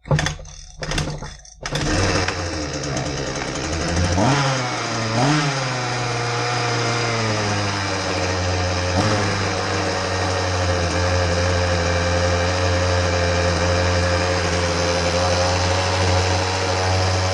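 Husqvarna 125B handheld blower's small two-stroke engine pull-started on choke: a couple of quick pulls on the recoil starter, then it fires and runs, revs up briefly twice, and settles into a steady run.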